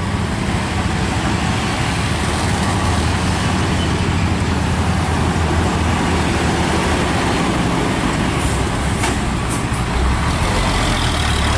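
Diesel engines of heavy trucks and a pickup passing close: a steady low rumble with road noise, swelling slightly near the end. A few short, sharp high sounds come about eight to nine seconds in.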